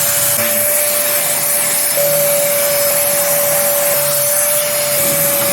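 Vacuum cleaner running steadily with a constant motor whine, sucking built-up dust out of a refrigerator's coils.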